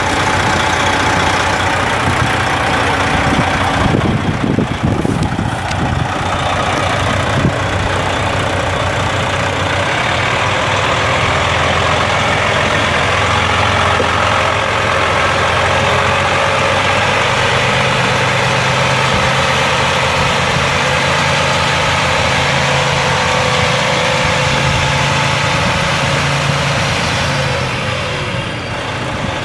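A 2006 Freightliner Columbia semi truck's Detroit Diesel 12.7-litre straight-six turbo diesel running steadily at low revs as the truck idles and moves slowly. There is a brief rough patch about four to six seconds in, and the engine note lifts slightly about halfway through.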